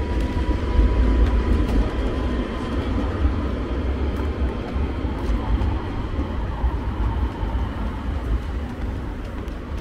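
Street traffic with a tram running along the road and pulling away: a low rumble with a faint steady whine at first, slowly fading.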